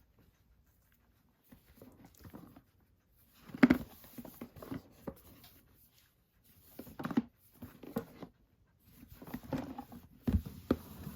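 Blu-ray box set packaging being handled: scattered rustles, scrapes and light knocks, the sharpest knock about four seconds in.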